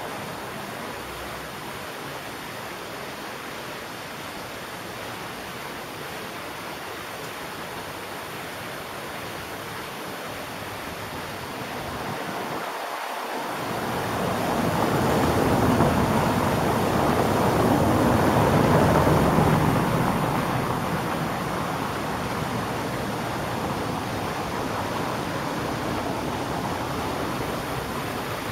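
Outdoor street ambience: a steady rushing noise that swells for several seconds around the middle, then settles back.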